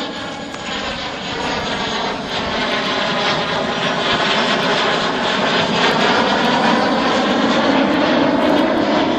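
Fouga Magister's twin Turbomeca Marboré turbojets whining as the jet flies past overhead. The tone sweeps and shifts as it goes by, and the sound grows louder through the pass.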